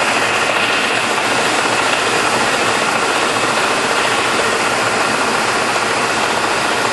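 Hwacheon HL-460 engine lathe running, a steady mechanical drone from its geared headstock and drive that holds even throughout.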